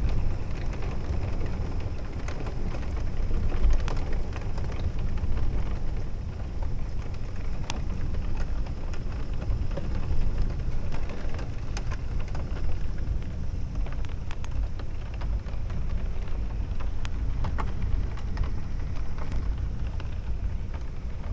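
Steady rain falling in a thunderstorm, with scattered sharp ticks of drops and a constant low rumble underneath.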